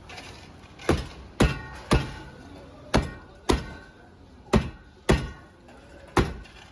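A street-food cook's utensil striking hard and repeatedly, chopping or banging on a board or griddle: eight sharp knocks, often in pairs about half a second apart, each with a brief ring.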